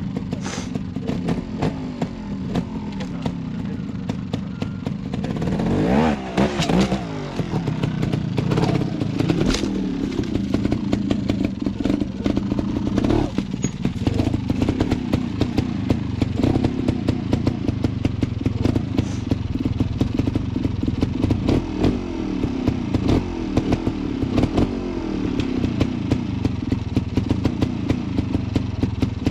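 Beta trials motorcycle engine running and being blipped, its pitch rising and falling sharply about six seconds in, with many short clicks and knocks throughout.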